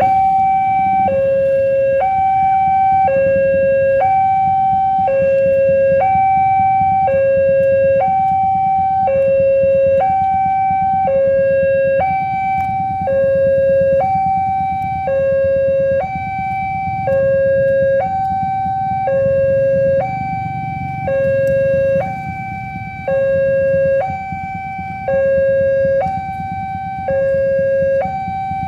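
Railway level-crossing warning alarm sounding a two-tone electronic signal, alternating steadily between a lower and a higher note about once a second. It signals that a train is approaching and the crossing is closed.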